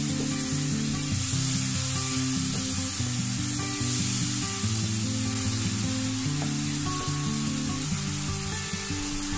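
Spiced sweet soy sauce sizzling in a wok as a spatula stirs it, cooking down toward a thick caramel. Background music with held low notes plays under the sizzle.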